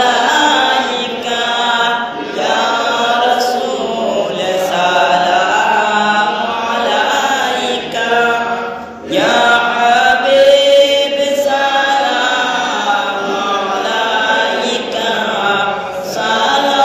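A man's voice chanting Milad Sharif, devotional verses in praise of the Prophet, in long melodic phrases with a brief break for breath about nine seconds in.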